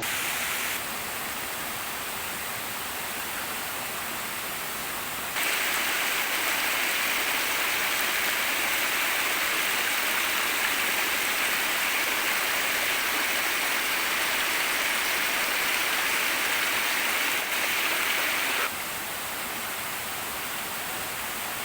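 Tumpak Sewu waterfall's rushing water, a steady hiss with no pitch. It steps louder about five seconds in and drops back down near the end.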